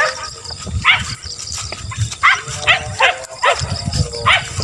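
Hunting beagles baying on a chase, in repeated short yelping cries that each fall in pitch.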